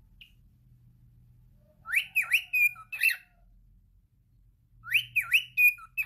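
Male cockatiel whistling a short phrase of quick rising and falling notes with a held note, twice, about two and five seconds in.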